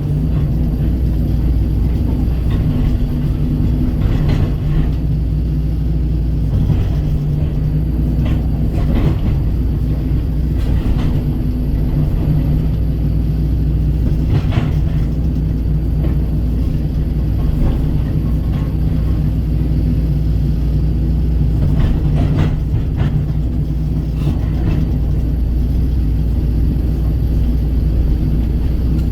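Kobelco SK135 excavator's diesel engine running steadily, with a few short knocks and scrapes scattered through as it works the dirt.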